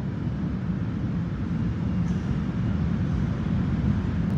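Low, steady rumble of a subway train in the tunnel, slowly growing louder.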